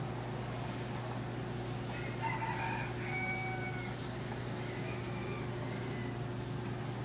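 A rooster crowing once, a drawn-out crow from about two seconds in to about four seconds in, over a steady low hum.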